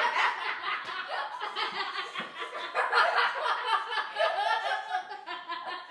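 A woman and three girls laughing together.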